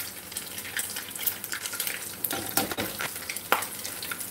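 Spoonfuls of salmon patty batter sizzling and crackling in hot oil in a cast iron skillet, with a few louder clicks partway through.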